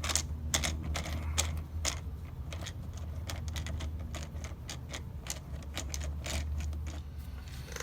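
Irregular small clicks and rattles of hand tools and metal parts being handled while working on a car door, a few clicks a second, over a steady low hum.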